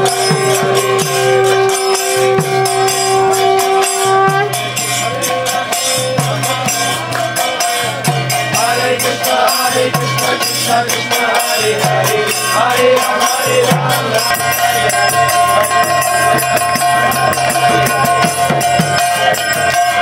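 Kirtan: small hand cymbals (karatalas) clashing in a quick, steady rhythm, with held steady tones underneath and chanting voices.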